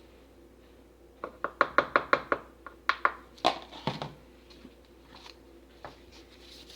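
A quick run of about a dozen light taps and clicks over roughly three seconds, then a few softer ones: soap-making cups and utensils being handled while soap batter is poured into a mold.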